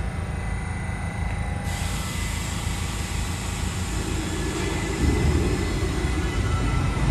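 New York City subway train on the BMT Brighton Line approaching the station, a steady rumble with a constant thin high tone. About five seconds in a heavier low rumble sets in and keeps growing louder.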